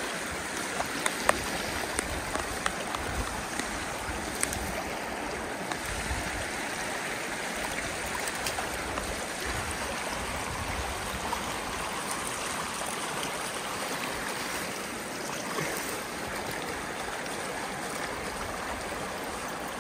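Shallow spring creek running steadily over rocks and gravel. A few sharp clicks come in the first few seconds.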